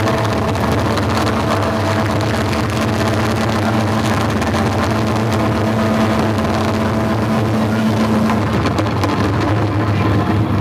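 Live band with bass guitar and drums playing a loud, steady droning passage of sustained notes over a heavy low rumble; one held note drops out a couple of seconds before the end.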